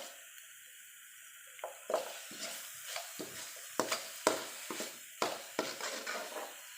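A cooking utensil knocking and scraping against a pan in a run of irregular clatters as the food is stirred.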